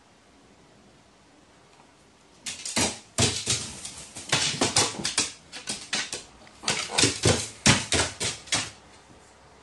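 A crow flapping its wings and striking at a tape-wrapped stick perch: an irregular flurry of wingbeats and sharp knocks, starting about two and a half seconds in.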